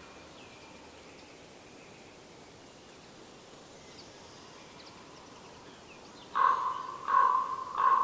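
A bird gives three loud calls in quick succession, about two-thirds of a second apart, starting near the end. Faint high chirps of other birds and a steady forest background come before them.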